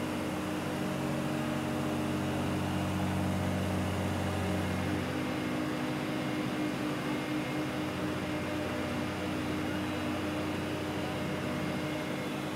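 Steady mechanical hum of hangar-deck machinery, several held tones over a background rush. A deeper part of the hum drops out about five seconds in.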